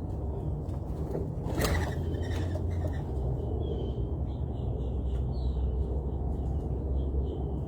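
Small birds chirping faintly at a feeder over a steady low rumble, with one sharp click about one and a half seconds in.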